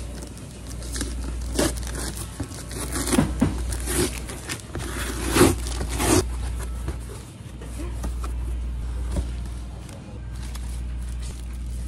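Packing tape being ripped off a cardboard box and the box flaps pulled open, giving a run of tearing and rustling cardboard sounds in the first half, loudest about five seconds in. A steady low hum runs underneath.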